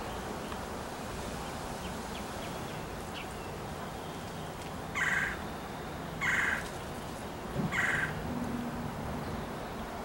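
Blue jay giving three harsh, jeering calls about a second apart, each under half a second long, over a steady low background hum.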